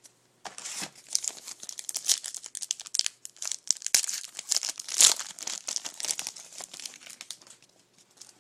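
Plastic wrapper of a 2011 Panini Certified football card pack being torn open and crinkled by hand, a dense run of irregular crackles, loudest about five seconds in.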